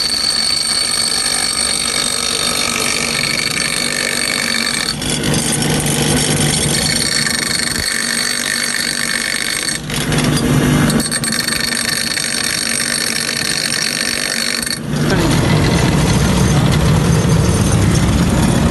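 A motor-driven workshop machine running steadily with a steady high whine over rough noise. Its sound changes abruptly about five, ten and fifteen seconds in, growing heavier and lower after the last change.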